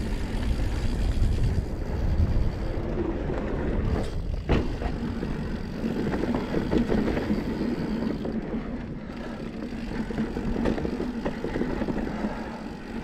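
2019 Santa Cruz Blur carbon full-suspension mountain bike rolling along a dirt singletrack: tyre noise on packed dirt and wind rumble on the mounted GoPro's microphone, with a couple of sharp knocks from the bike hitting trail bumps about four seconds in.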